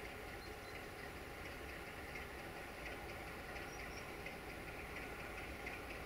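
Distant 060-DA (LDE2100) Sulzer diesel-electric locomotive running steadily as it draws a freight train slowly closer, a faint low rumble with a light engine hum. Faint repeated chirps sit above it.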